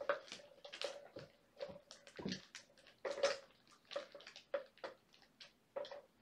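Irregular soft rustling and scuffing, a rapid series of short scrapes, from kittens being handled and rubbed on a towel and moving about on a rubber floor mat.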